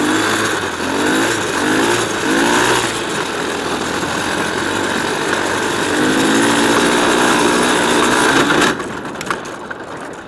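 Small 125 cc off-road engine revving hard under way, with wind rushing over the microphone: three short rising pulls, then a longer climb in pitch. Near the end the throttle shuts and the engine sound drops away suddenly.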